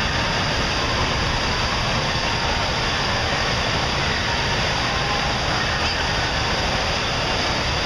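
Hot tub water churned by its jets: a steady, loud rushing noise that does not let up.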